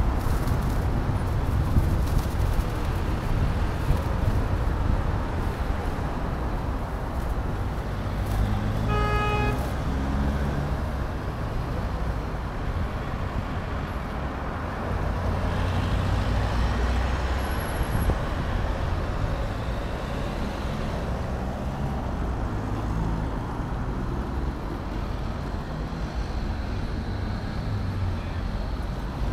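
Steady city traffic noise with a low rumble, heard from a moving bicycle. A single short vehicle horn toot sounds about nine seconds in.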